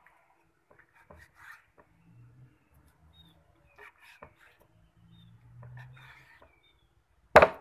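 Kitchen knife slicing raw chicken breast on a wooden chopping board: faint, scattered soft cuts and scrapes, with one loud sharp knock near the end.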